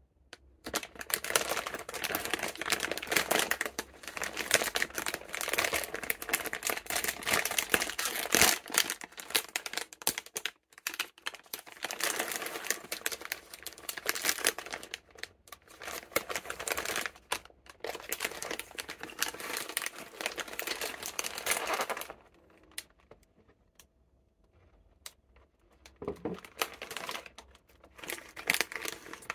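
Crinkly plastic snack packaging being handled: the outer bag of a biscuit family pack and the small single-serving packets inside it, crackling and rustling. It goes on almost without a break for the first twenty-odd seconds, dies down, then starts again near the end.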